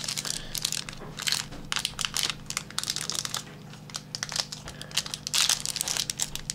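Sealed trading-card pack wrapper crinkling and tearing as it is opened by hand, in irregular crackles. The packs are hard to tear open.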